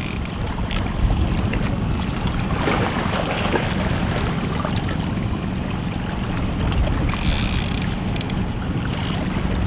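Suzuki outboard motor running steadily at trolling speed, with water washing past the boat and wind on the microphone. A short louder rush of noise comes about seven seconds in.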